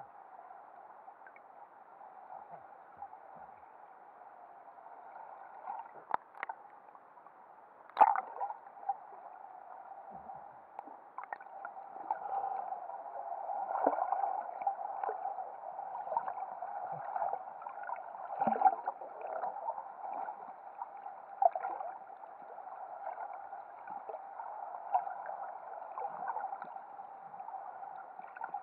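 Muffled underwater sound as picked up by a submerged camera: a steady dull hiss of water, with scattered sharp clicks and knocks, the loudest about eight seconds in.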